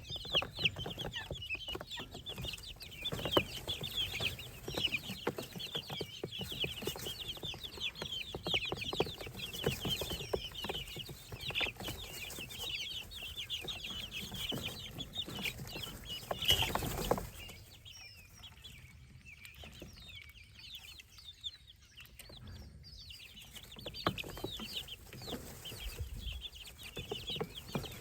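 A brood of baby chicks, keets and ducklings peeping, many short high cheeps overlapping in a continuous chorus. About two-thirds through there is a brief louder rustling noise, after which the peeping thins out for a few seconds before building again.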